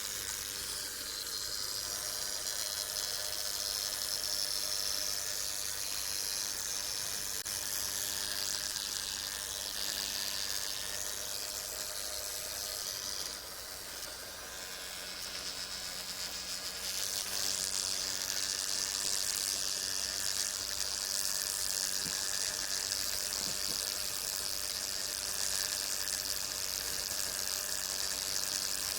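Brown marmorated stink bug buzzing its wings in a steady, raspy buzz. It eases off a little about halfway through, then grows louder again.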